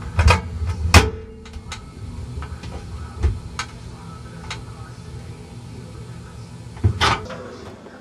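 A series of knocks and clicks on a microwave oven, heard from inside it. The loudest knock comes about a second in with a brief ring after it, lighter ticks follow, and there is another cluster of knocks near the end.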